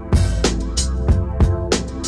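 Background music: an instrumental beat with deep kick drums and sharp snare and hi-hat hits over a steady bass line.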